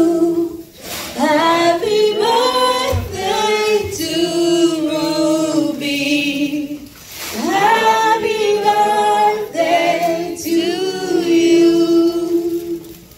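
A group of mixed voices singing a birthday song together without accompaniment, in long sung phrases with brief breaks, trailing off near the end.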